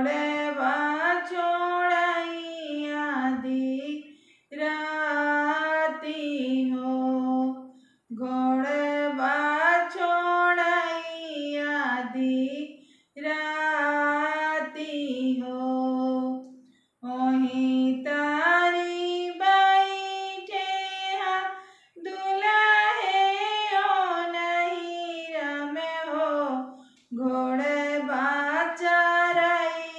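A woman singing a Bagheli folk wedding song (vivah geet) for a son's wedding, unaccompanied, in phrases of about three to four seconds with short breaks between.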